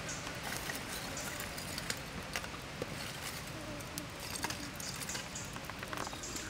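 Small wood campfire crackling, with scattered sharp pops and snaps over a steady hiss.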